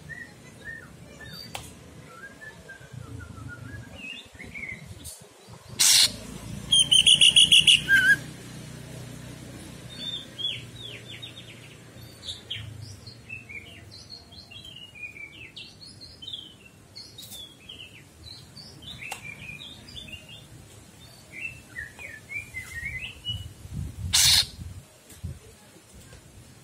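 Male cucak ijo (green leafbird) singing: a long run of short, varied chirping and twittering notes, with a loud fast trill about seven seconds in. Two brief loud bursts break in, one just before the trill and one near the end.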